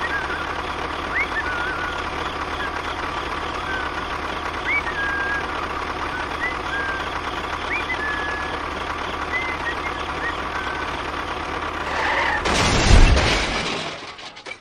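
Small motor of a DIY mini construction vehicle running steadily with a constant whine, short high chirps scattered over it. Near the end a loud rushing burst, after which the sound fades away.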